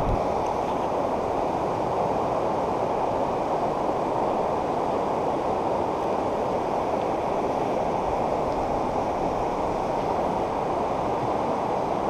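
Steady rushing of the river Lomme in flood, the swollen water flowing fast at an even level.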